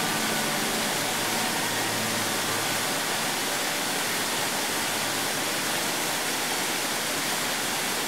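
Steady rushing of a tall waterfall. Low held notes of background music fade out about three seconds in.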